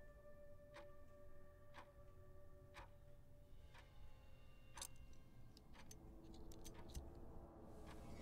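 Faint clock-like ticking, about one tick a second, over a soft steady drone of held notes. About six seconds in, the ticks turn quicker and irregular.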